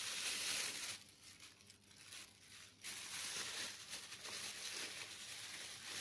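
Plastic freezer bag crinkling and rustling as sticky slime is pulled out of it, with a quieter lull about a second in.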